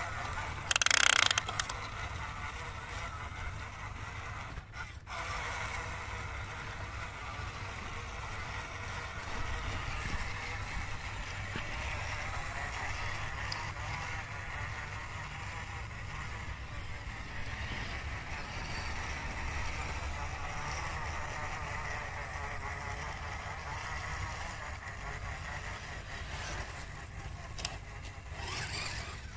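Radio-controlled Fayee military truck on rubber tracks driving over dirt: a steady whine of its small electric motors and gears, with track and running-gear rattle. A short, loud burst of noise comes about a second in.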